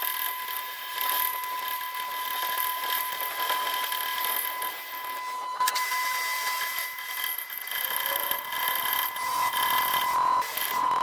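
Metalworking power tool running with a steady high whine over a hiss, with one sharp click about five and a half seconds in.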